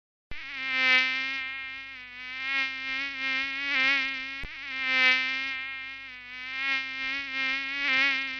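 Mosquito in flight: a high, thin whine with a slightly wavering pitch that swells louder and fades as if flying close by and away. The same stretch plays twice, with a small click where it repeats about halfway through.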